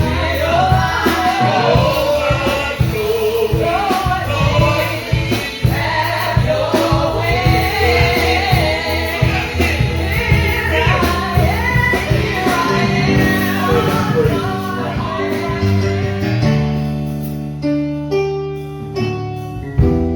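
Gospel praise-and-worship singing, several voices with a live band. About three-quarters of the way through the singing stops and the band plays on with held chords and plucked notes.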